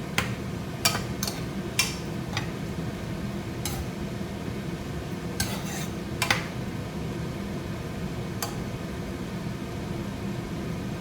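A spoon stirring vegetables in a pot of water, knocking and clinking against the pot about ten times, most of them in the first few seconds. A steady low hum runs underneath.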